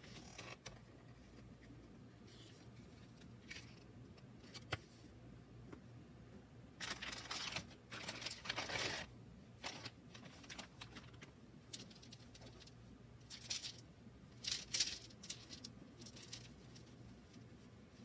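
Packaging being handled up close: scattered light clicks and taps with short bursts of paper or plastic rustling, the longest about midway and a few more later.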